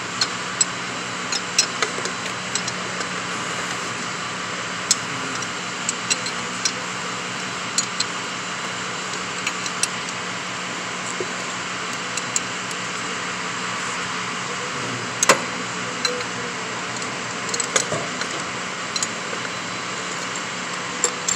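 A wrench clinking on the nut of a homemade injector-cup puller as it is tightened to draw an injector cup out of an LB7 Duramax cylinder head. Scattered sharp metal clicks, the loudest about 15 and 18 seconds in, over a steady whirring hum.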